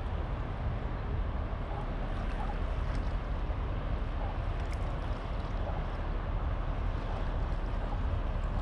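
Wind buffeting the microphone: a steady, fluttering low rumble with a hiss of open air over it.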